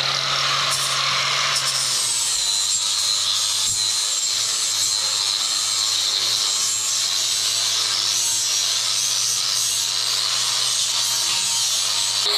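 Angle grinder fitted with a flap disc running steadily under load, grinding weld spatter off steel, with a steady motor hum under a high grinding whine.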